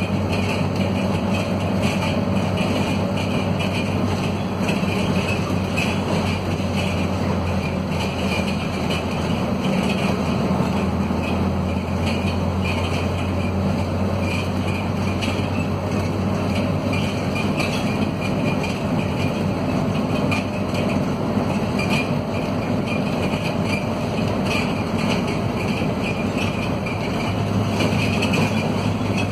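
Interior sound of a Scania K230UB city bus with its 9-litre Scania DC9 diesel pulling steadily under load on a climb. The steady engine drone comes with road noise and rattling from a bus in the worn, run-down state typical of its fleet.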